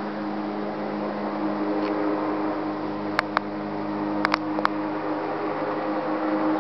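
Steady mechanical hum with a few sharp clicks a little past halfway.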